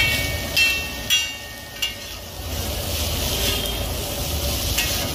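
Metal spatula clanking and scraping on a large flat griddle as noodles are tossed and stir-fried, over a steady frying sizzle. Four sharp ringing clanks come in the first two seconds and one more near the end.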